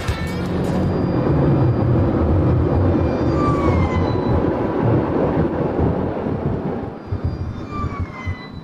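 Heavy wind and road rush on a microphone held out of a fast-moving car's window, easing near the end. Under it a siren's tone is faintly heard, gliding downward twice.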